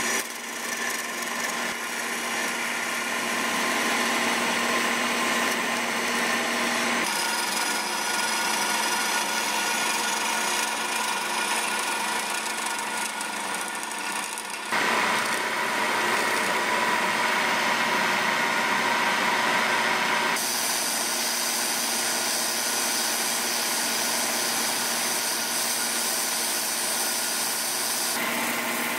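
Wood lathe running while a hand-held turning tool cuts and scrapes the spinning wooden vase blank, a steady machine hum under the hiss of the cut. The sound shifts abruptly three times as the work changes from one shot to the next.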